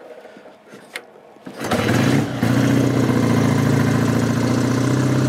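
1960 BSA A7's 497cc parallel-twin engine starting from cold on the choke. A click about a second in, then the engine catches, surges briefly, and settles into a steady idle.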